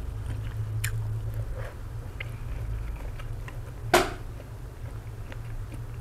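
Close-miked chewing and biting of noodle soup with fish balls, soft mouth sounds and small clicks over a steady low hum, with one short sharp noise about four seconds in.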